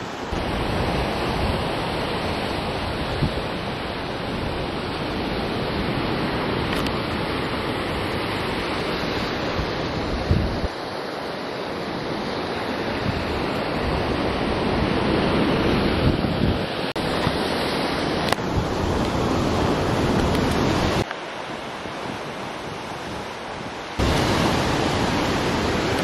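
Wind buffeting the microphone over surf breaking against rocks below sea cliffs, a steady rushing noise with low rumble. It changes level abruptly several times.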